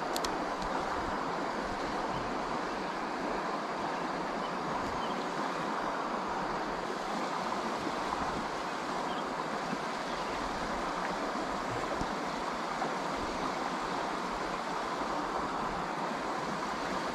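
Steady rushing of a rain-swollen creek's flowing water, an even hiss with no breaks. A couple of faint clicks at the very start.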